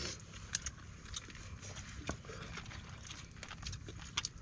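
Scattered small clicks and smacks of several people eating with their hands from a shared spread of rice and sea urchin kinilaw, over a faint steady background.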